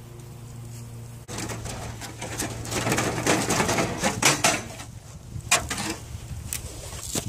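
Steel expanded-metal cooking grate being lifted and dragged across a metal fire ring. It rattles and scrapes, metal on metal, from about a second in, then gives a few sharp knocks near the end.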